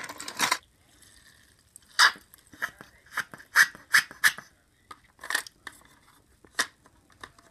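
Plastic toy car wash playset being handled with a toy car: a brief scrape at the start, then a string of about a dozen sharp plastic clicks and taps.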